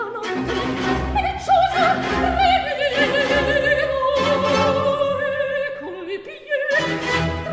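Operatic soprano singing a baroque aria with wide vibrato, accompanied by a baroque string orchestra. Near the end the music briefly drops away, then the orchestra comes back in loudly.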